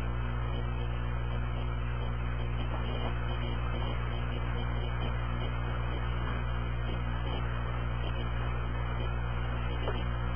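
A steady low droning hum that holds unchanged throughout, with a few faint ticks over it.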